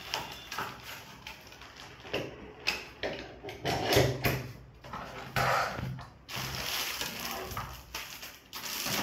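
A collapsible parabolic softbox being pulled open and its centre hub pushed to lock the ribs: the fabric and metal rods rustle and rattle in irregular bursts, loudest about four seconds in.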